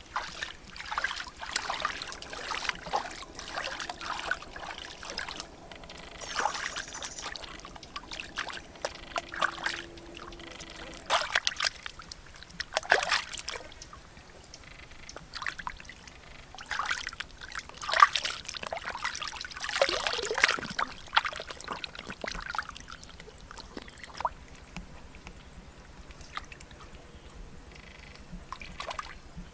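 Shallow stream water splashing and sloshing in irregular bursts as hands rinse and rub a whole plucked chicken in it.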